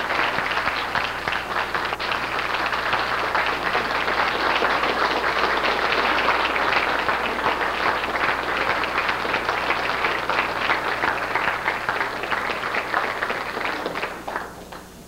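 Audience applauding, a steady mass of clapping that dies away near the end.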